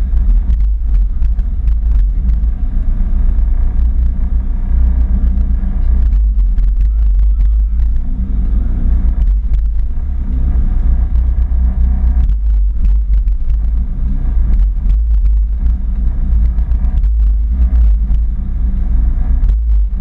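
Seat Ibiza drag car's engine running at idle, heard inside its stripped cabin: a steady low rumble whose pitch wavers slightly as the engine speed rises and dips a little.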